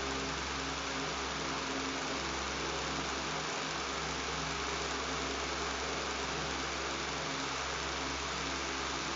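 Electric fan running steadily: an even whooshing noise over a low buzzing hum that does not change.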